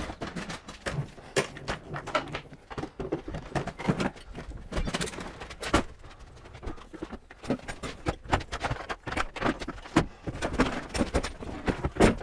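Irregular knocks, clicks and light rattles of footsteps on a work van's floor and hard plastic Milwaukee Packout tool boxes being handled, with the loudest knocks near the end.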